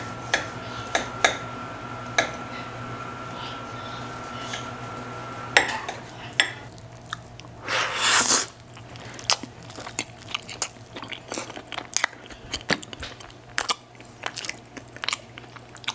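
A fork clinking on a plate as bacon-wrapped roast pork is cut, then close chewing of the mouthful, with many small crunches and clicks and one louder noisy burst about halfway through.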